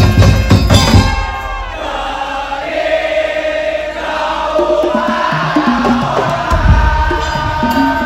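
Daul Madura (tongtong) parade music: drums and percussion loud with deep bass at the start, easing into a held melody with voices chanting along, and the bass drum coming back in near the end.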